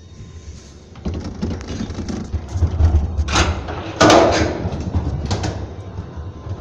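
Ropeway cabin running into the station: a low rumble that starts about a second in, with clattering and three loud metal knocks, the loudest a little past the middle.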